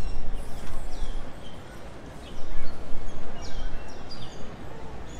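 Birds chirping: many short, high calls that sweep downward in pitch, overlapping and repeating, over a low rumble.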